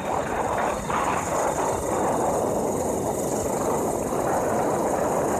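Steady noise of a motorcycle on the move: engine and the rush of wind and road noise, with no single event standing out.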